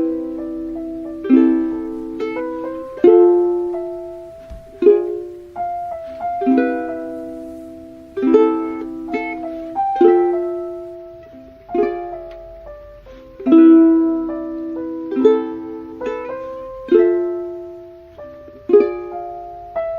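Background music: a plucked string instrument plays slow chords, one about every second or two, each ringing and fading before the next.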